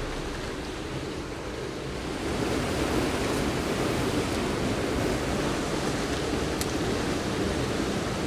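A steady rushing noise that grows a little louder about two seconds in.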